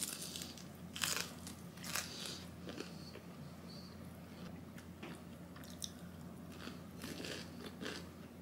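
A person biting into and chewing a piece of crispy-coated fried chicken, with loud crunches about once a second at first, then softer chewing.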